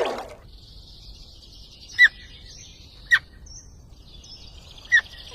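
A bird calling: three short, sharp chirps, each dropping quickly in pitch, over a faint steady high hiss.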